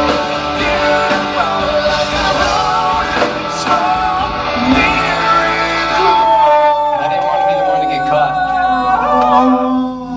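A live rock band plays the closing bars of a song with a singer's voice over it. About six seconds in the drums drop out, and held notes ring on and fade near the end.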